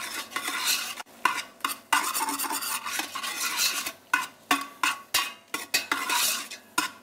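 Metal utensil stirring and scraping sliced mushrooms frying in a large stainless steel pot, with a sizzle under the scraping and several sharp knocks of metal against the pot.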